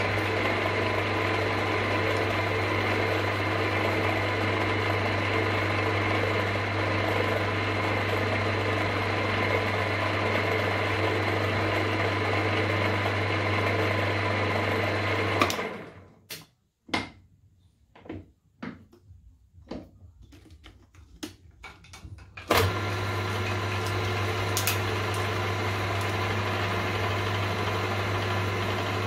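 Benchtop milling machine's motor and spindle running steadily with a low hum, drilling and reaming holes in an aluminium crank web. About halfway through it stops, leaving a few faint clicks and knocks, and then starts again with a short surge.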